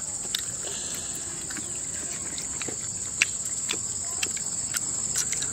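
Steady high-pitched insect chorus, with scattered short clicks and smacks from hands tearing and eating grilled chicken.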